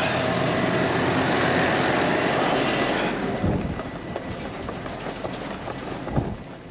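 Roll tarp being pulled closed over a loaded grain truck: a loud, steady rattling rush that stops about three seconds in, followed by quieter scattered clicks and knocks.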